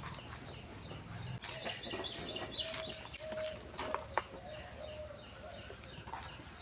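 Birds calling in the background, fowl-like clucking calls strongest about two seconds in, with a few sharp clicks of dry cement or dirt lumps being crumbled, the loudest about four seconds in.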